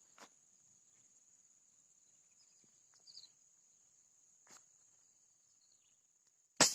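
Insects shrilling in one steady high-pitched tone, with a few faint clicks and one loud sharp crack near the end.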